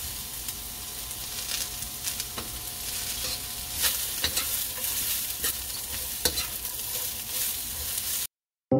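Shredded carrots and slaw sizzling in oil in a wok, stirred with a metal spatula that clicks and scrapes against the pan again and again. The sound cuts off suddenly near the end.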